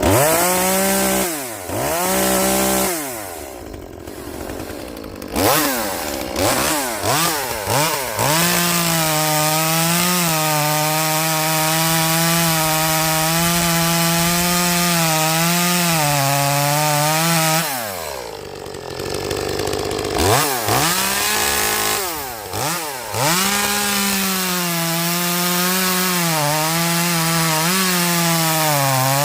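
Echo 2511P small two-stroke chainsaw, stock, revved up and down a few times and then held at full throttle for long stretches, its pitch sagging a little now and then as it cuts wood. It drops to idle about eighteen seconds in, then revs back up and runs at high speed again. The owner thinks this saw lacks power, and its carb limiters have been removed.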